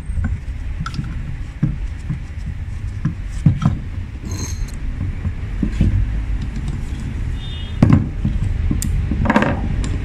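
Scattered metal clicks and knocks as an EGR valve, its exhaust pipe, bolts and a socket extension are handled and fitted together by hand, with the sharpest knock about eight seconds in and a short scrape just after. A steady low rumble runs underneath.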